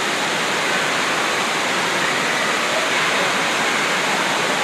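Steady rushing of water on a FlowRider simulated-wave ride, a thin sheet of water pumped at high speed up the ride's slope and breaking into white foam at the crest.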